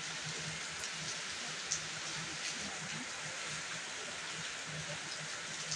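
Steady hiss with a faint low hum underneath, broken by a few light clicks and taps.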